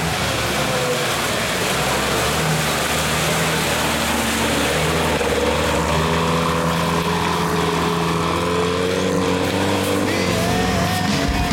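Off-road vehicle engine running, its pitch rising and falling as it is revved.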